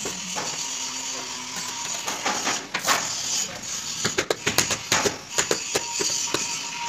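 Sharp taps and knocks of large wall tiles being pressed and set by hand into tile adhesive, in irregular clusters of clicks.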